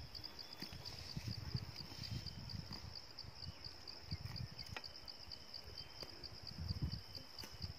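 A steady, high-pitched insect chirp pulsing several times a second, over uneven low rumbles on the microphone.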